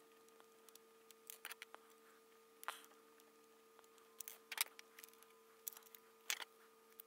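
Faint, scattered small clicks and taps from a precision screwdriver backing out the stiff screen screws on an RC transmitter's circuit board, and from the board being handled, over a low steady hum.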